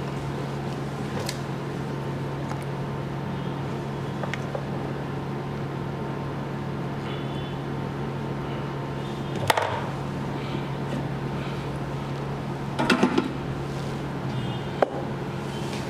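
SMD hot-air rework station blowing with a steady hum, heating a phone display flex connector to desolder it. A few light clicks of a metal tool against the connector come about halfway through and again near the end.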